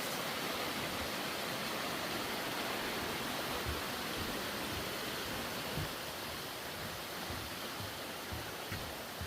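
Steady rushing of a stream. Soft low thuds come now and then in the second half.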